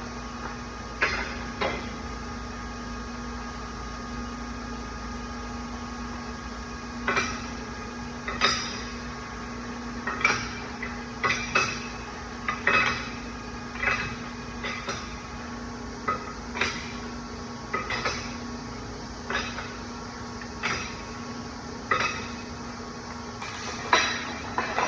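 Irregular metallic clinks and taps with a short ring, about one every second, from steel tools and parts being handled at a lathe while a dial indicator is set up. A steady machine hum runs underneath.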